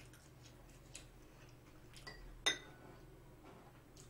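Quiet eating sounds with small scattered clicks, and about two and a half seconds in one sharp, ringing clink of chopsticks against a ceramic bowl.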